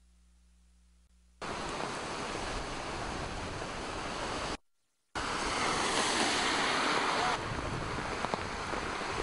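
Hurricane-force wind buffeting the microphone along with crashing surf: a loud, steady rush that starts suddenly, cuts out for about half a second a little before the middle, then comes straight back.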